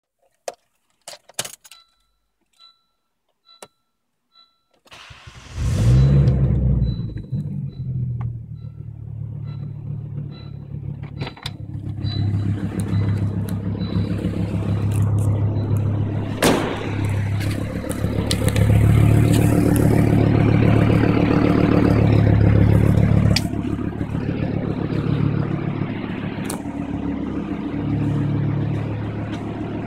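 A few clicks and a faint repeating chime, then about five seconds in a Volvo V70 T5's turbocharged five-cylinder engine cranks and starts. It runs with a loud, rough exhaust note from a leaking exhaust, where an old weld repair has opened up again. It is revved several times, loudest around the middle, then settles back to idle.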